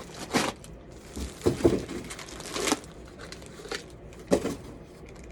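Packaging crinkling and rustling in short, irregular bursts, with a few light bumps, as a small electric chopper is lifted out of its box.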